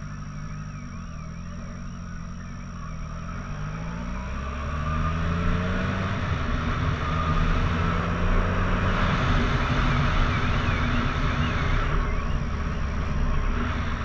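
Turbocharged motorcycle engine pulling through the gears, its pitch rising and falling with each shift and getting louder from about four seconds in. A car alarm's warbling wail sounds in the background near the start and again later.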